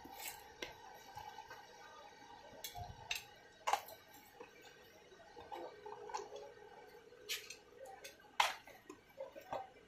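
Scattered light clicks and taps of plastic jar lids, jars and a spoon on the counter as chopped nuts are spooned onto a glass of lassi, the sharpest about four and eight seconds in, over a faint steady hum.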